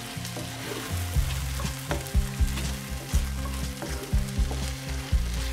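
Onion and tomato masala sizzling in hot oil in a non-stick kadai while a wooden spatula stirs it, scraping and tapping against the pan a number of times.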